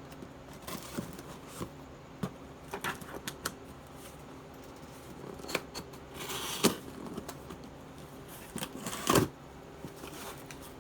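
Clicks, taps and rustling as knives and their packaging are handled, with a louder knock about two-thirds of the way in and another near the end, over a faint steady hum.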